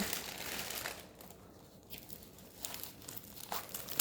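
Packaging of a diamond painting kit crinkling and tearing as it is handled and opened, busiest in the first second, then a few short crackles later.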